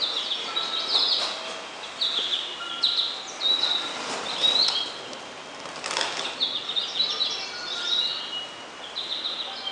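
Birdlike chirping: quick, high chirps that come in short clusters about once a second, with a single sharp click about six seconds in.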